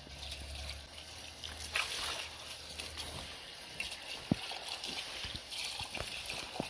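Garden hose spray nozzle spraying water onto a motorcycle tire and wheel rim: a steady hiss and splash of water, with a few small knocks.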